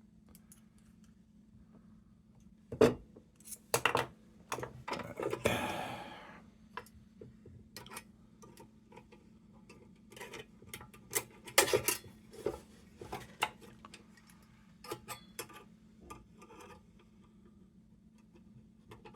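Scattered metallic clicks, clinks and knocks as lantern sheet-metal parts and hand tools are worked against each other, with a short scrape about five and a half seconds in and a flurry of sharper clicks around the twelve-second mark.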